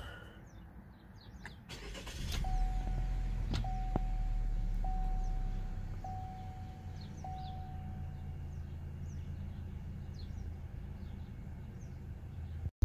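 The 2020 Chevrolet Equinox's 1.5-litre turbocharged four-cylinder, on its stock airbox, pulls under acceleration for about three seconds, then eases back to quieter steady running. A repeating chime sounds five times about a second apart.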